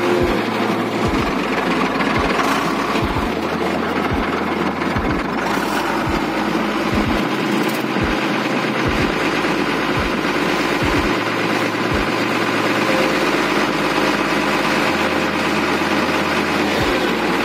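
Tata 2518 truck's diesel engine running steadily at idle.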